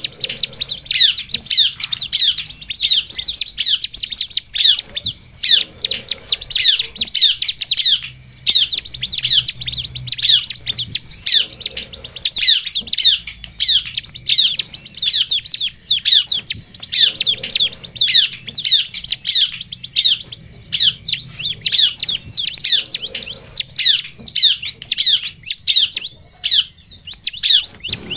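Bar-winged prinia (ciblek) in full, excited song: a rapid, near-unbroken run of sharp high chirps, each dropping in pitch, with only short breaks.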